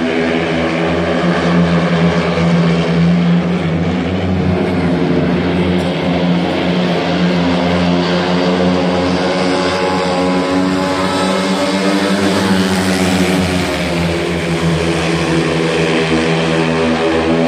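A pack of four speedway motorcycles racing around the track, their 500 cc single-cylinder methanol engines running loud and continuous. The engine pitch shifts up and down around the middle as the riders throttle through the bends.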